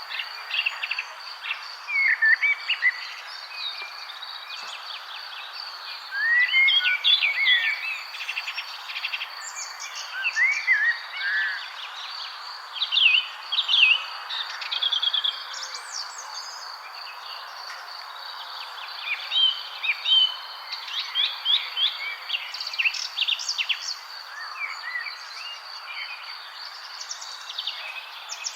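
Several songbirds chirping and singing in short, overlapping phrases and quick whistled sweeps, in clusters throughout. Underneath, insects trill steadily at a high pitch.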